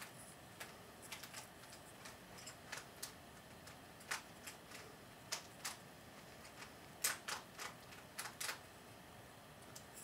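Faint, irregular clicks and taps of fingers handling the wooden throwing arm of a small balsa model trebuchet while tying a string onto it, with a quick run of louder clicks about two-thirds of the way through.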